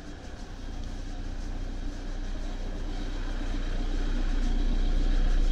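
A large road vehicle's engine running with a low rumble, growing steadily louder as it draws near.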